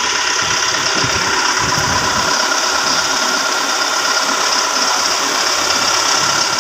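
Engine of the Marais machine running steadily, a continuous even mechanical noise.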